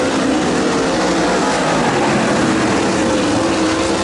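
Dirt late model race cars' V8 engines running hard on the track: a loud, steady engine drone whose pitch wavers slowly up and down, dipping a little near the end.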